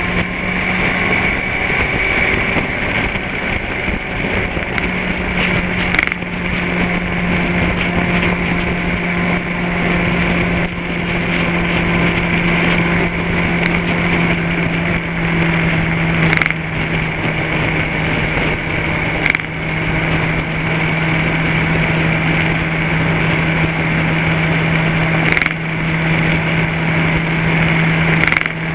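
Small vehicle engine running at a steady speed, with a handful of short sharp clicks or knocks.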